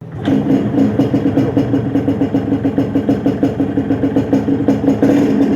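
Yamaha RX-King 135 cc two-stroke single-cylinder engine idling with a fast, even pulsing beat and a chirping rattle in its note, likened to a cricket ("ngerik").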